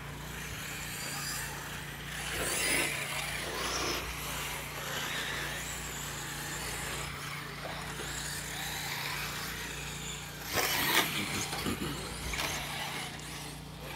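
Electric 1/10-scale radio-controlled off-road buggies racing on a dirt track: motor whine rising and falling as the cars accelerate and pass, with tyres on dirt. A louder, brief pass comes about ten and a half seconds in.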